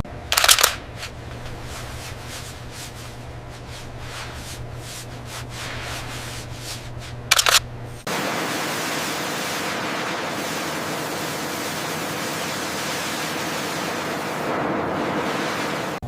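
A low steady hum, broken twice by a short, sharp burst of hiss about seven seconds apart; about halfway through the hum stops and a steady, louder hiss takes over.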